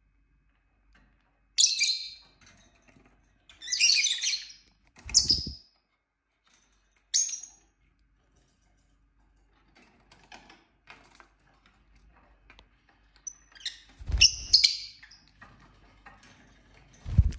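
Lovebirds giving short, high-pitched chirps in separate bursts, a cluster in the first half and another about two-thirds of the way through, with a few low thumps among them.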